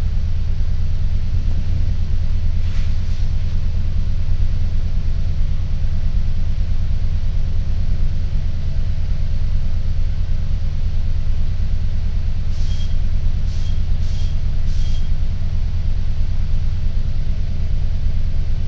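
Transit bus idling at a stop, heard from inside the cabin: a steady low rumble. Four short high beeps sound about twelve to fifteen seconds in.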